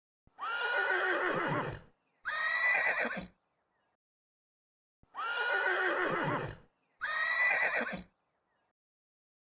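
Horse whinnying four times in two matching pairs, each pair a longer call followed by a shorter one. Each call leaps up in pitch and wavers before sliding down, with complete silence between the calls.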